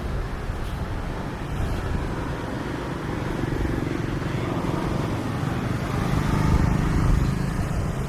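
Vehicle engine rumble that grows louder about six to seven seconds in.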